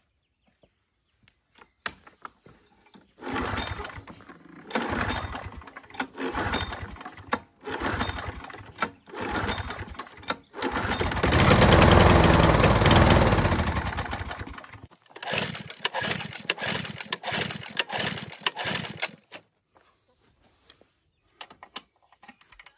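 Briggs & Stratton engine of a Toro Recycler lawn mower being pull-started again and again. A string of short pulls on the starter cord is followed by one catch where the engine runs for about four seconds and dies, then more pulls without it starting. A few light clicks come near the end.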